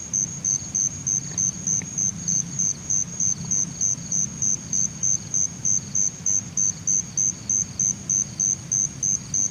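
A cricket chirping steadily in a high, even rhythm of about four chirps a second.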